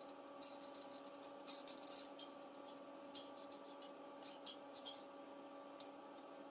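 Faint scratching of a marker pen colouring on paper in short, irregular strokes, over a steady low hum.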